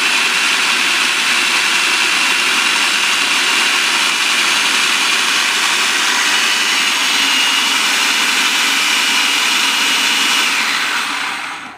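Food processor motor running at speed with a steady high whine, blending a wet batch of fresh coriander, jalapeño, vinegar, lemon juice and water into green chutney. It winds down and stops near the end.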